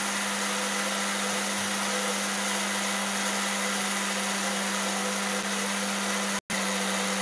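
Oxford electric blender running steadily at speed, beating eggs to a froth for cake batter. The motor's even whir drops out for a split second near the end.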